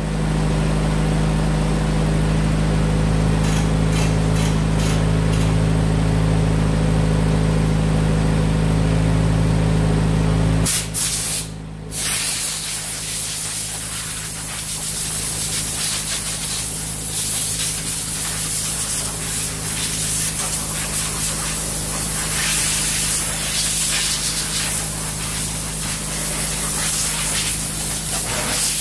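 Ford GPW's four-cylinder flathead engine idling steadily, then cutting out a little over a third of the way in. Then compressed air hissing from an air blow gun, a short blast followed by a long continuous hiss that wavers in strength.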